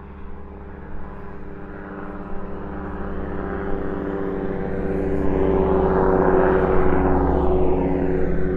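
Airplane flying over, its engine drone growing steadily louder as it approaches and loudest about six to seven seconds in, with the pitch starting to fall as it passes near the end.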